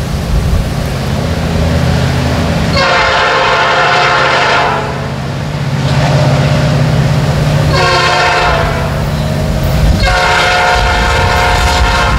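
Canadian National SD70M-2 locomotive sounding its air horn for a grade crossing: a long blast, a short one, then another long one near the end. Underneath is the steady low drone of the approaching locomotive.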